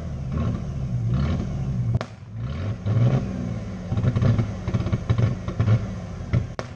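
Car engine revving hard in repeated surges, rising and falling, as it is driven through thick mud, with sharp cracks about two seconds in and near the end.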